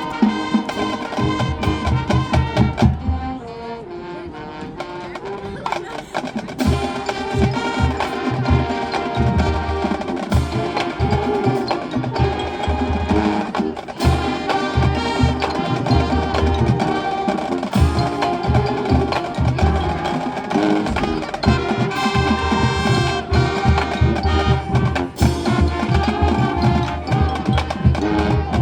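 High school marching band playing its field show: wind instruments carry the melody over the drumline, with regular bass drum strokes. The band thins out to a softer passage a few seconds in, then comes back in full.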